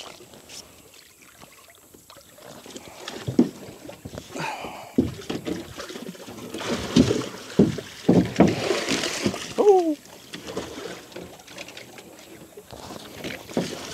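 Knocks and splashes in and against a boat as a hooked alligator is worked in on its line, busiest from a few seconds in until about ten seconds, with a short falling vocal sound around then.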